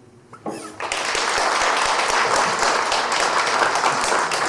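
Audience applauding steadily, starting about a second in, just after the last sung line of a song with guitar ends.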